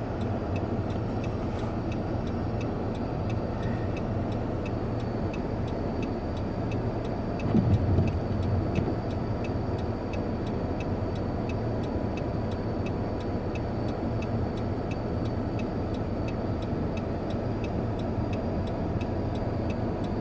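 A car engine running steadily, with a fast, even ticking of about three ticks a second over it. A brief louder low rumble comes about eight seconds in, as the engine is pushed harder.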